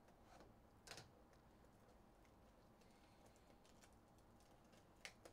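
Near silence: faint room tone with a couple of faint clicks or taps, one about a second in and another near the end.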